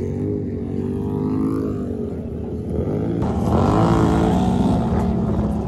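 Four-wheeler (ATV) engine revving hard as it skims across water, its pitch rising and falling. A rush of water spray joins in about three seconds in.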